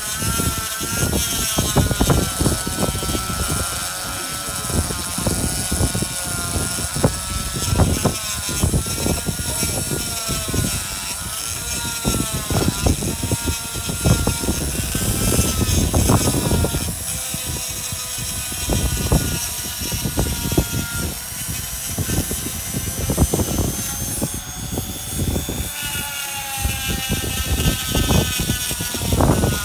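Handheld straight die grinder with a rotary burr cutting into limestone. Its motor whine dips and recovers in pitch as the bit bears into the stone, with irregular rasping scrapes of the burr against the rock.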